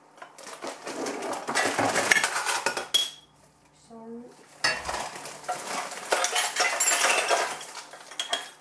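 Baking pans and dishes clattering and knocking together as a stack of trays is rummaged through. It comes in two spells with a short pause between.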